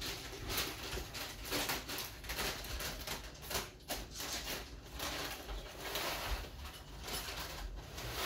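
Glass electric kettle heating water toward the boil: an irregular hiss with crackling surges about every half second.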